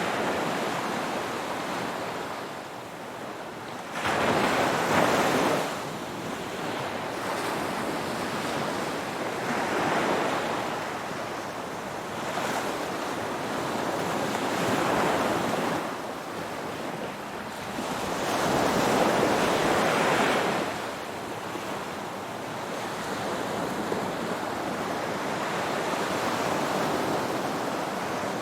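Ocean waves breaking and washing onto the shore in repeated surges about every four to five seconds. A sharper, louder wave breaks about four seconds in and another swells near the twenty-second mark.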